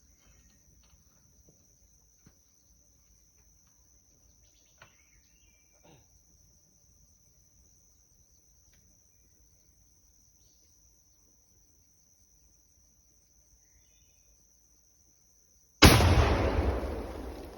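Insects droning steadily in the background, then near the end a single loud explosion as the Sonic Boom exploding-target charge in a beaver dam detonates, its rumble dying away over the next two seconds.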